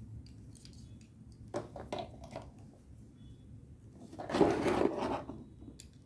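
Hands handling a phone charger and its white USB cable while plugging it in: a few light plastic clicks and taps, then a louder rough scraping rustle about four seconds in.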